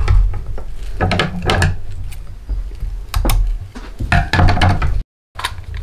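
Handling noise from a push-button spincast fishing reel as line is knotted around its spool: scattered clicks and rattles of plastic and metal parts over a steady low rumble. The sound cuts out for a moment near the end.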